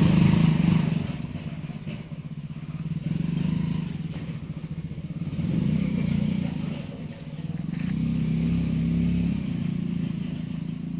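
A small engine running with a low, pulsing rumble, its level swelling and easing every few seconds.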